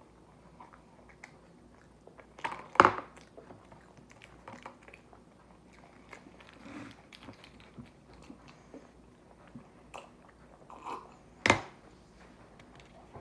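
A person chewing a soft, chewy chocolate-chip snack bread, with small wet mouth clicks throughout. Two louder short noises stand out, about three seconds in and near the end.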